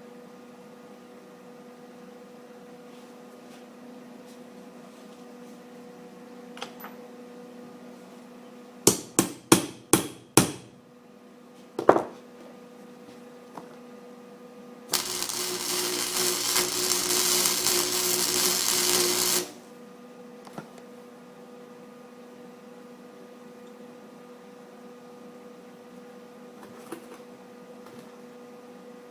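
Five quick sharp metal strikes about nine seconds in and one more a little later: slag being knocked off a fresh weld on a broken bolt in a cast-iron exhaust manifold. Then a welding arc crackles steadily for about four and a half seconds and cuts off abruptly, over a steady electrical hum.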